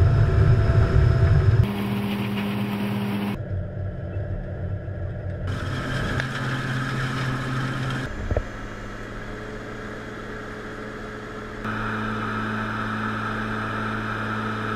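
Grape harvester running: a steady engine hum with the noise of its picking and conveying machinery. The sound changes abruptly several times, as at edit cuts between recordings.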